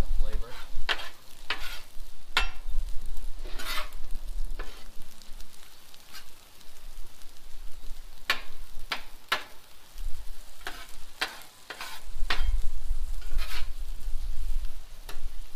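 Metal spatula scraping and clacking on a Blackstone steel griddle top as sliced steak and onions are chopped and turned, about a dozen irregular strikes over a steady frying sizzle.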